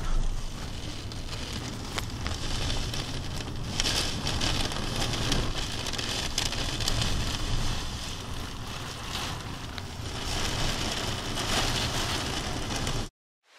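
Tornado wind and heavy rain heard from indoors through a window: a dense, steady rushing noise with a low rumble and scattered sharp clicks and knocks against the glass. It cuts off suddenly near the end.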